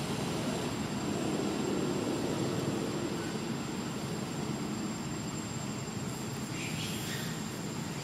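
Steady low rumbling background noise, with a thin high steady tone throughout and a faint brief hiss about six seconds in.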